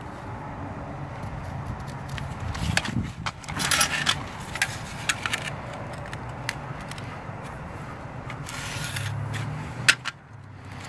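Hand tools handled on concrete wall caps: a tape measure and an aluminium level set down and moved over the block tops, giving scattered scrapes, clicks and rattles, with one sharp click near the end. A steady low hum runs underneath.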